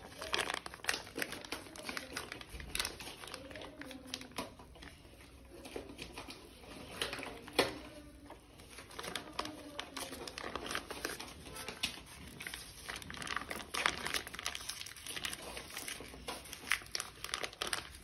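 Desi ghee melting in a heated iron kadhai, sizzling with small irregular crackles and pops, with one louder snap a little before halfway.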